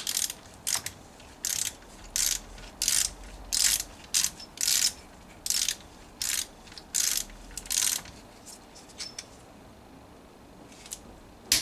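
Ratcheting torque wrench working a gearbox locking bolt: repeated short bursts of ratchet clicking as the wrench is swung back and forth, about a dozen strokes, stopping about eight seconds in.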